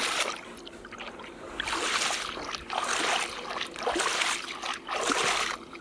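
Water splashing and sloshing as toy vehicles are washed, in four bursts about a second apart.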